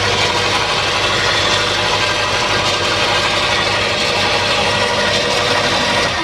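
Ryobi chipper shredder running steadily with a dense grinding hiss over a low hum, its cutter plate freshly adjusted to meet the cutting cog; it is switched off near the end and the motor winds down.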